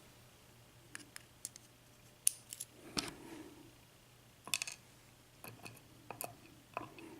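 Faint, irregular small clicks and taps from tiny lock pins and tools being handled while a pin-tumbler cylinder is taken apart, with a few louder ticks about three and four and a half seconds in.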